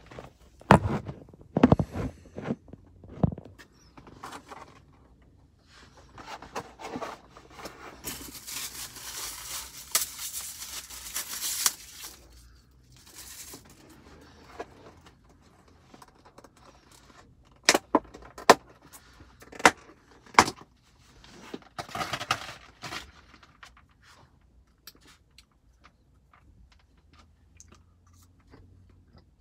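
Handling sounds of a plastic takeout food container being unpacked in a car cabin: knocks and thumps in the first few seconds, a few seconds of crinkling plastic rustle in the middle, then several sharp plastic clicks and snaps, with more rustling before it goes quiet.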